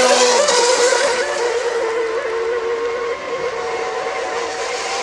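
Several radio-controlled model racing boats' small engines running at speed: a high-pitched whine that wavers in pitch and drops a little in level about three seconds in.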